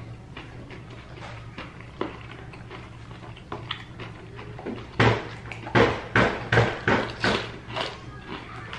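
Crispy fried chicken crunching as it is bitten and chewed close to the microphone: about eight loud crunches in quick succession, starting a little past halfway. A low steady hum runs underneath.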